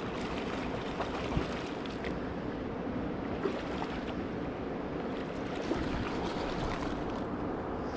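Shallow river current rushing steadily over stones and gravel.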